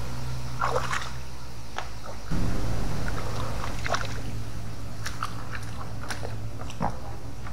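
Shallow river water splashing and sloshing around a wader's rubber boots, with scattered short knocks and splashes as he handles a bamboo pole, over a steady low hum.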